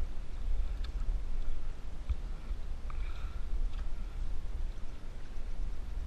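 An outrigger canoe being paddled: paddle strokes and water washing along the hull over a steady low rumble, with a few faint knocks spread through.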